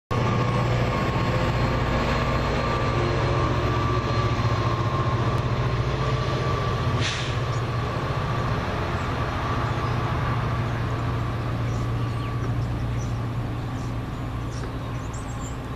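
Diesel-electric freight locomotives running under power in the distance, a steady low engine drone with a thin high tone above it.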